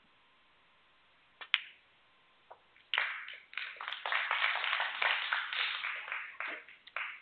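Snooker cue striking the cue ball, then the cue ball clicking sharply into a red that is potted, with a faint knock about a second later. Audience applause follows for about four seconds.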